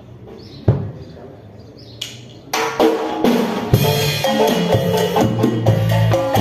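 Marimba ensemble starting a tune: two single percussion knocks, then about two and a half seconds in the band comes in with marimba notes over a bass line and drum kit.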